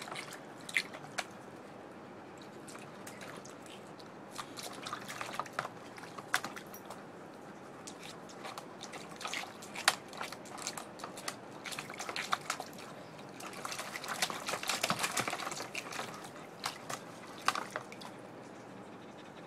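Springer spaniel pawing at a block of ice in its water bowl. Water splashes and drips in irregular spells, with a few sharp knocks, and it is busiest about two-thirds of the way through.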